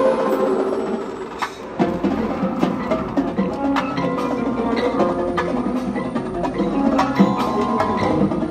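Drum and bugle corps show music dominated by the front ensemble's marimbas and other mallet percussion, playing a run of sharp struck notes over held tones. It thins briefly about a second and a half in, then resumes with a sharp hit.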